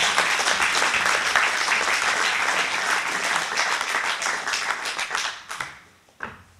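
Audience applauding, a dense patter of many hands clapping that thins out and dies away about five and a half seconds in.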